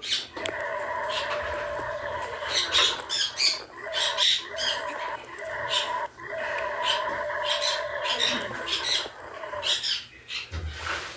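Bird chirping repeatedly in short high-pitched notes over a steady hum.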